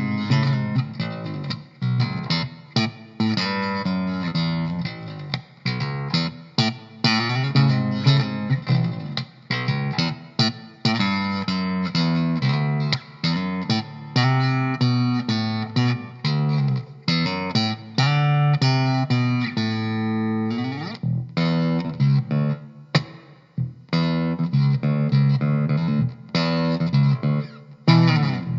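Electric bass guitar, a copy of a 1951 Fender Precision Bass, playing a continuous line of plucked notes. One note slides upward about two-thirds of the way through, followed by a couple of brief pauses.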